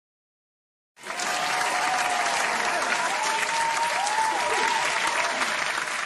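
Sitcom-style studio-audience applause, with a few wavering cheers over the clapping, starting suddenly about a second in.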